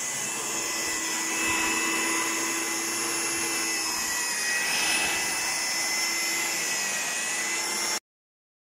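Stand-mounted electric diamond core drill running steadily with a high motor whine as it bores a test core out of concrete; the sound cuts off suddenly near the end.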